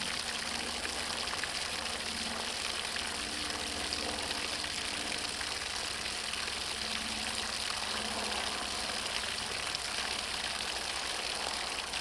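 Steady gush of water from a garden hose, the jet splashing onto the ground.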